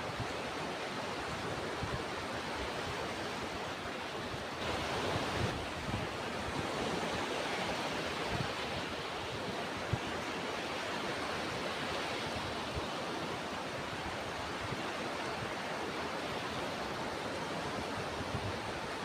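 Ocean surf as a steady rush of breaking and washing waves, swelling briefly about five seconds in, with one short thump about ten seconds in.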